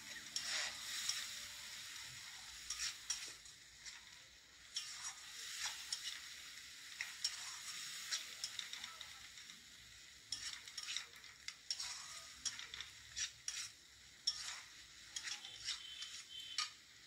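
Metal spatula scraping and stirring onion-tomato masala around a kadai, with many sharp scrapes against the pan. The paste sizzles steadily in oil as it is fried down after chilli-turmeric water was added.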